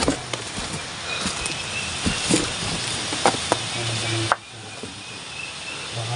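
Rustling and crackling of leaves and branches brushing against the phone while pushing through dense forest undergrowth, with scattered snaps and clicks. The noise drops suddenly about four seconds in.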